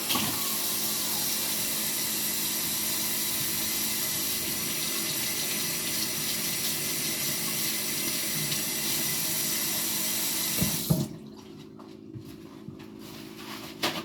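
Kitchen tap running steadily into the sink, then turned off with a short knock about eleven seconds in.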